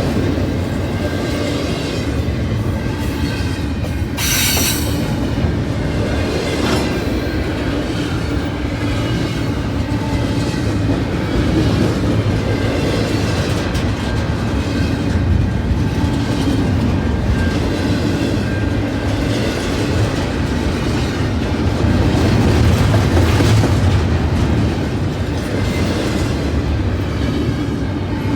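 CN freight train's intermodal cars rolling past with a steady rumble and clickety-clack of wheels over rail joints. A brief high-pitched screech comes about four seconds in.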